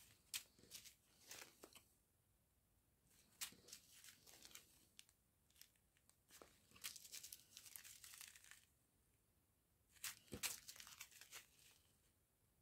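Small zip-lock plastic bags of round diamond painting drills crinkling as they are handled, in short irregular bursts with quiet gaps between.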